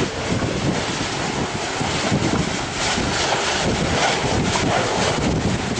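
Strong storm wind rushing and buffeting the microphone in a steady, loud roar of noise.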